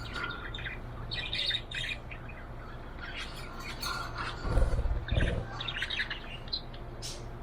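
Budgerigar chirping in quick clusters of short, high chirps, over a low steady hum. Two low thumps come about halfway through.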